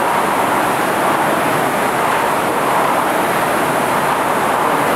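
Several indoor rowing machines with air-resistance flywheels spinning together, a steady whooshing whir from the fans as the rowers pull.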